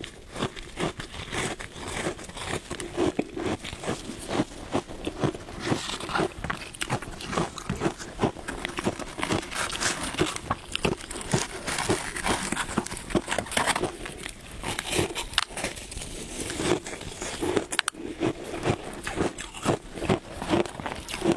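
Close-up crunching and chewing of shaved ice: a dense, continuous run of crackly bites. Gloved hands breaking chunks of ice in the tub add to the crackle.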